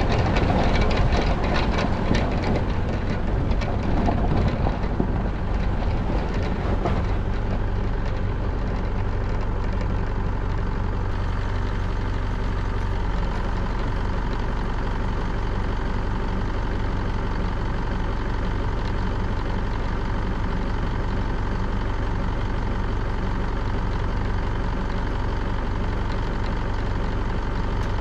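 A 4WD's engine running as the vehicle rolls along a gravel track, with tyre noise for the first several seconds, then idling steadily once it is stopped.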